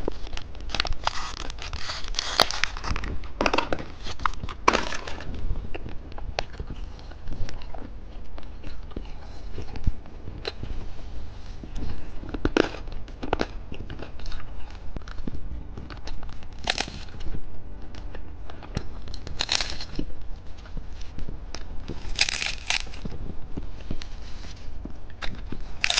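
Plastic candy packaging being crinkled and torn open, a run of irregular crackles and rustles with a few longer tearing sounds.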